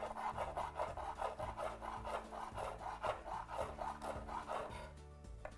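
Chef's knife chopping fresh parsley on a wooden cutting board: a quick, steady run of knife strokes that dies away near the end.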